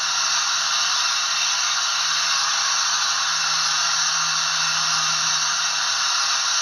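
Hornby A4 'Sparrowhawk' model locomotive's DCC sound chip playing steam blowing off, a loud steady hiss from the model's small onboard speaker. It is an idle sound the chip plays when the engine has stood idling for a while, which the owner jokingly calls overheating and wasting steam.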